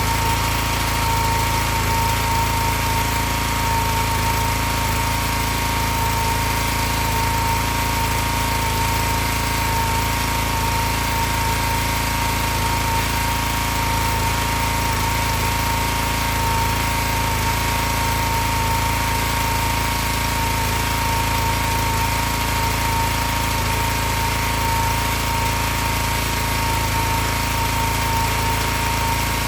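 Excell XR2500 pressure washer's 5 horsepower Honda single-cylinder engine running steadily without dying out, with a steady whine. Its stalling fault was traced to a bad spark plug.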